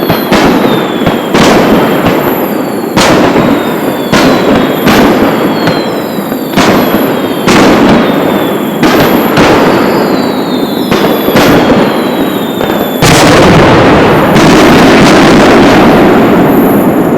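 Fireworks display: aerial shells bursting one after another, each bang trailing off into a rumble, with faint falling whistles between them. About 13 seconds in, the bursts merge into a continuous, dense barrage of booms and crackle.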